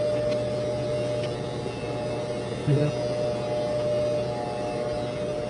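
Corded electric hair clippers buzzing steadily as they cut a boy's hair, with a brief low sound about halfway through.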